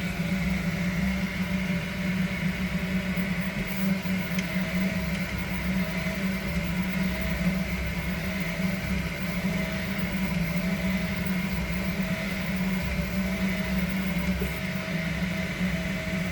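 An extruder running with a steady hum and a higher whine above it, unchanged throughout. This is the abnormal noise its owner calls bad.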